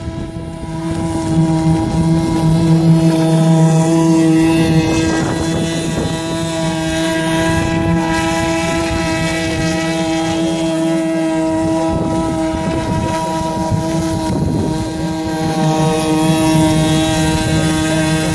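Vintage radio-controlled air boat's small nitro glow engine and propeller running steadily at high speed, holding a nearly constant pitch, a little louder a few seconds in.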